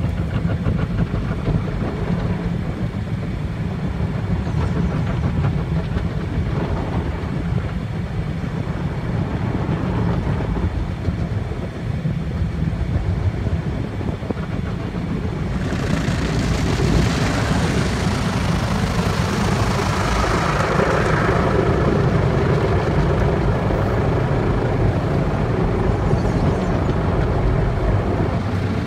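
Automatic car wash heard from inside the car: a steady low rumble. About halfway through, a louder hiss of water spray and scrubbing against the car joins it.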